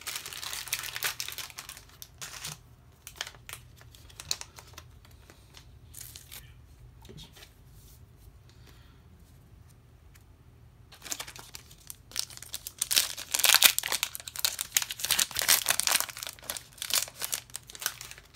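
Crinkling and rustling of thin plastic card sleeves and packaging in bursts, with a few light clicks in between and the longest, loudest crinkling in the second half, as a Pokémon card is slid into a plastic sleeve.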